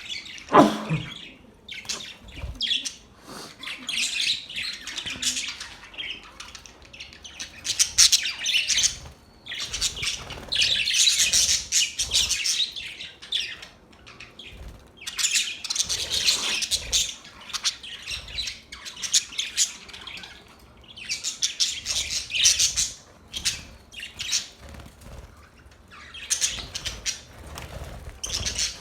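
Budgerigars chirping and chattering in bursts of dense high warbling that come and go every few seconds, with a loud call that falls steeply in pitch near the start.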